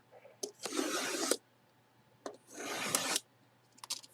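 Two rasping strokes, each under a second, with a few light clicks between: packaging being rubbed or worked open by hand.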